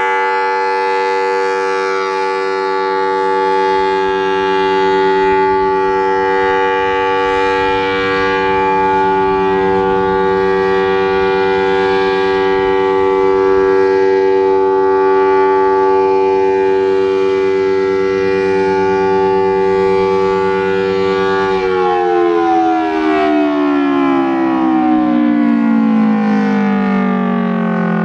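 Federal Signal Thunderbolt 1003A outdoor warning siren (4/5 port, with blower) sounding its steady alert signal as a loud held chord. About 22 seconds in it is switched off and winds down, the pitch falling steadily.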